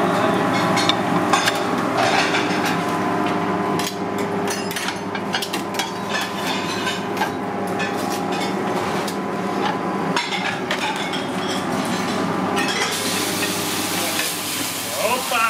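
Restaurant kitchen sounds: a steady hum with oil frying in a deep fryer, and many clinks and taps of metal tongs, fry baskets and plates. About thirteen seconds in, a hiss comes in over it.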